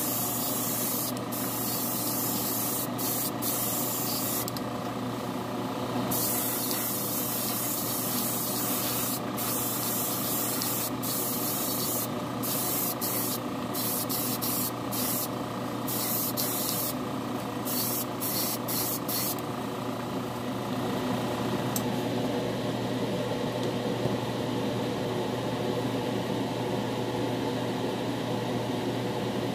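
A small paint spray gun hissing in short on-off passes as it lays down a first coat of clear coat. The spraying stops about two-thirds of the way through. A steady low hum runs underneath throughout.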